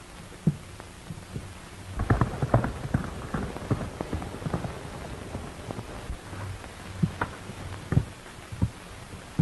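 Hoofbeats of a galloping horse, an irregular patter of thuds starting about two seconds in and thinning out toward the end. Under them runs the steady hiss and low hum of an old film soundtrack.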